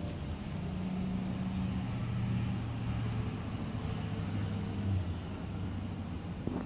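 Low, steady engine hum of a motor vehicle running nearby, easing off a little about five seconds in.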